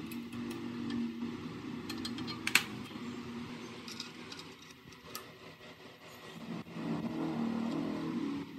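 Small metal clicks and clinks of hand tools working on a chop saw's drive pulley and motor shaft, with one sharp clink about two and a half seconds in, over a low hum.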